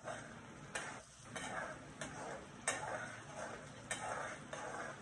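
Spiced curd masala frying and sizzling in a metal kadai as it is stirred, with a few sharp clicks of the spoon against the pan.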